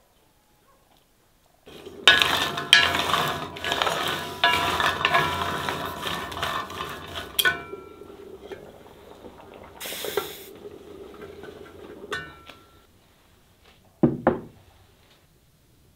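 Scored chestnuts clattering and rattling against a black metal chestnut-roasting pan as they are stirred, with many metallic clinks, dying down after several seconds and broken by a brief hiss. Near the end come two soft thumps of a ceramic bowl set down on a wooden table.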